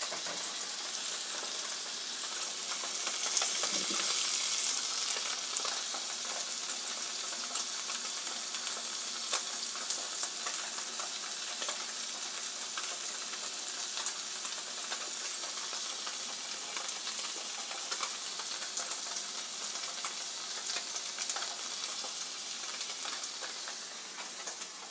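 Two slabs of tofu frying in grapeseed oil in a stainless steel pan: a steady sizzle with many small pops, swelling louder for a moment about three to four seconds in.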